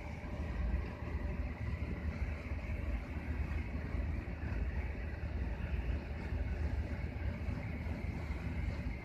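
Steady low rumble of a ship's machinery heard from inside the vessel, with a fainter steady hum higher up and no changes.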